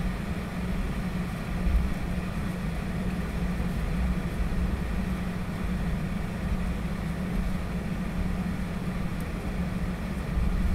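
Steady cabin noise inside a Boeing 737-800 taxiing after landing: a low, even rumble of its CFM56-7B engines at idle and the airframe rolling along the taxiway.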